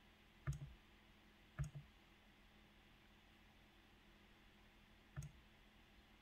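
Computer mouse button clicked three times: two clicks about a second apart near the start, and one more about five seconds in.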